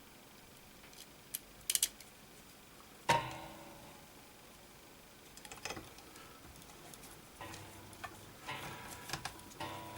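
Clicks, taps and knocks from handling computer parts while a cable is plugged in. A sharp knock about three seconds in rings briefly.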